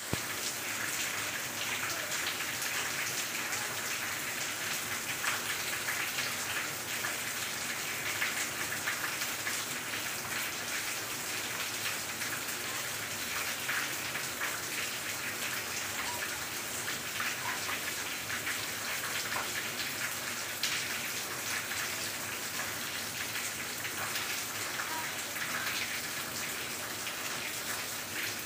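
Steady rain falling: an even hiss of many small drops, with scattered sharper drop ticks throughout.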